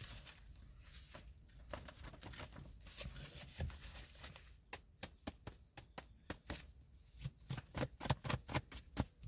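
Faint rustling, then about halfway through a run of sharp, quick clicks and taps, several a second, like small hard objects being handled.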